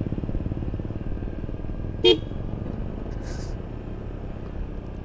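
Honda Vario 125 scooter's single-cylinder engine running at a steady cruise, with one short, loud horn beep about two seconds in.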